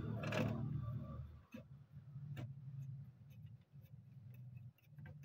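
A few faint clicks and taps from wires and parts being handled on an amplifier chassis, over a faint low hum. A louder low hum dies away in the first second and a half.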